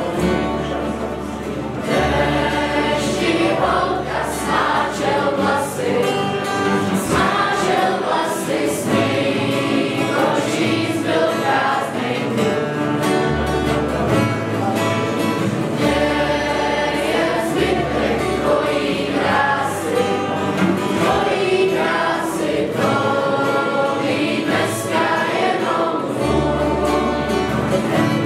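Group singing in chorus, accompanied by many acoustic guitars and a double bass, with bass notes changing every couple of seconds.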